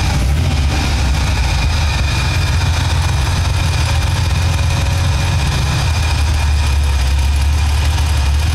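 Steady low engine drone and road noise heard from inside a moving car's cabin.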